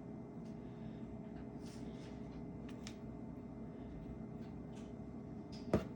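Faint small ticks and taps of a small repair tool against the phone's internal parts, with one sharper click near the end, over a steady low hum.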